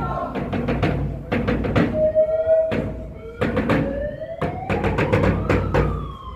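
Large hand-held frame drum beaten in an uneven rhythm by a marcher. In the second half a siren-like tone rises slowly and then falls.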